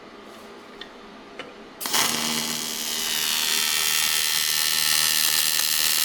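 Angle grinder with an aluminum flap disc starting up suddenly about two seconds in and running steadily, smoothing a weld on a cracked aluminum wheel. The first two seconds hold only a few faint clicks.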